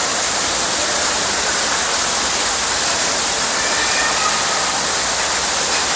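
Steady rushing roar of a waterfall: an even, hissing wash of falling water with no pitch and no rhythm.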